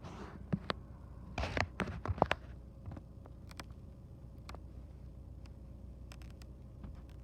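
A scattered run of sharp clicks and knocks, bunched in the first two and a half seconds with a few faint ticks later, over a low steady hum. No siren is sounding.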